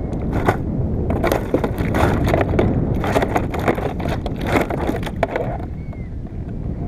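Wind buffeting the microphone, with a dense run of clattering knocks and crackles from about half a second in until about five and a half seconds in, as of hard gear being handled or knocked about.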